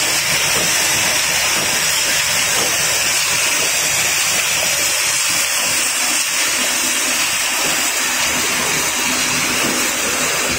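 Automatic marker-pen assembly machine with its vibratory bowl feeders running: a steady, even hiss of machinery noise with no distinct strokes.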